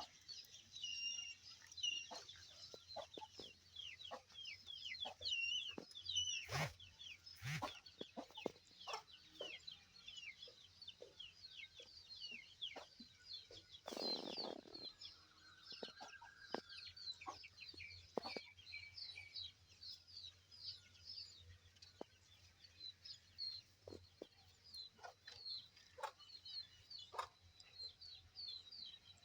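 Birds chirping busily: many short, quick high calls one after another, with scattered clicks and knocks and a brief lower sound about fourteen seconds in.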